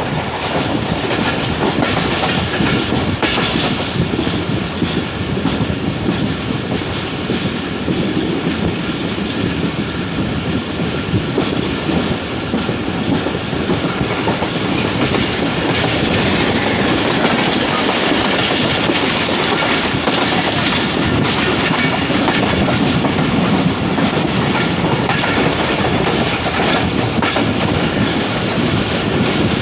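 Passenger train running steadily along the track, heard from on board: the continuous noise of the carriages' wheels rolling over the rails.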